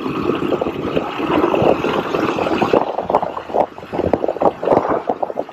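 Wind buffeting the microphone on a moving scooter, an uneven rushing noise over the scooter's running and road noise.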